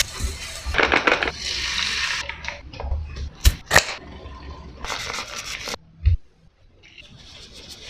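Food-preparation noises: crackly scraping and crunching with several sharp clicks, a low thump about six seconds in, then faint.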